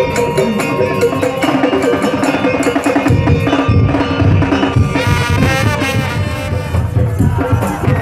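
Madurese daul (tongtong) music: wooden slit drums and drums keep a steady, driving beat under pitched melodic parts.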